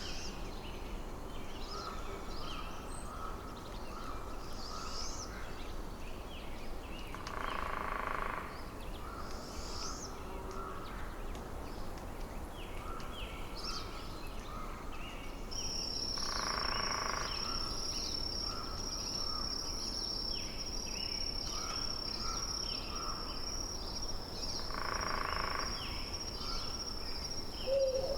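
Forest nature ambience: a steady rushing noise bed with many short bird chirps. A louder call with stacked tones comes three times, about eight to nine seconds apart, and a steady high-pitched insect-like trill joins about halfway through.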